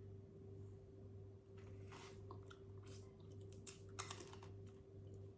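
Faint, close-miked chewing and mouth sounds of a person eating seafood: soft wet smacks and small crunches, the sharpest about four seconds in, over a steady low electrical hum.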